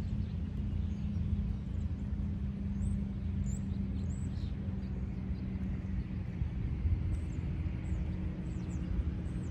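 Outdoor ambience: a steady low rumble with a constant hum underneath, and scattered faint high chirps.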